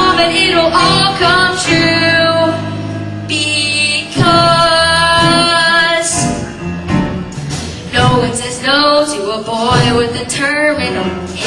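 Live musical-theatre singing over instrumental accompaniment, with several long held notes.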